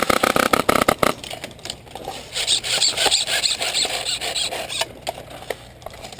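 An airsoft gun fires a rapid full-auto burst, a fast even train of clicks lasting about a second at the start. Scattered clicks and rustling follow.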